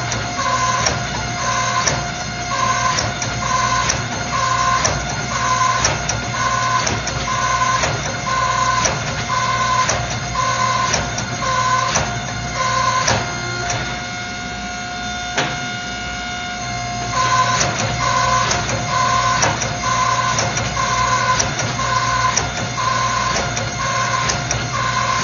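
Hydraulic forging press running with drawing dies: a steady motor hum under a regular cycling about once a second, which pauses for a few seconds a little past the middle and then resumes, as the steel billet is drawn out.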